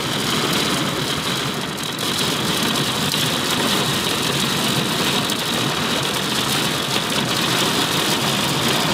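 Heavy rain falling in a thunderstorm, a steady even hiss.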